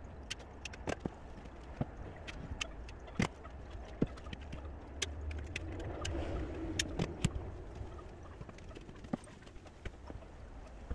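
Scattered sharp knocks and taps of footsteps in flip-flops on a plywood subfloor, with the rattle of a tool belt, over a low steady hum.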